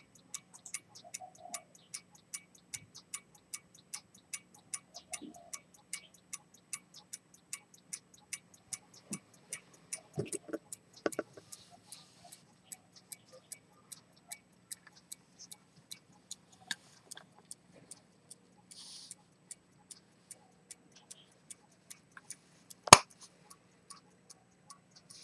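Pocket watch with a key-wound fusee movement and pivoted-detent chronometer escapement ticking evenly, about two and a half ticks a second, showing the watch is running. A few soft knocks come around the middle, and one loud sharp click near the end.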